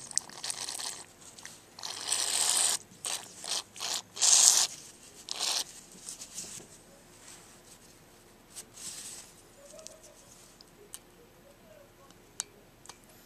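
Aerosol spray hissing through a red extension straw into the passages of a two-stroke carburetor body to clean them, in a series of short bursts through the first six seconds, the loudest about four and a half seconds in. Fainter bursts follow, then a few sharp clicks near the end.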